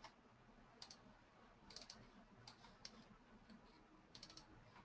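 Faint clicking at a computer: a few single clicks and two quick runs of clicks, about two seconds in and again near the end.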